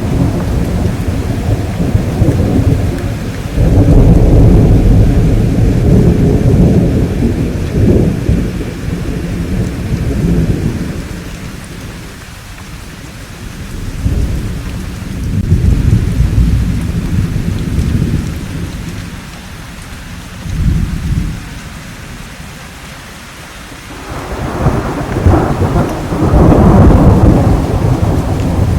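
Thunderstorm: rain falls steadily while thunder rolls in long low rumbles, with one loud swell a few seconds in, quieter rumbles in the middle, and another loud roll beginning near the end.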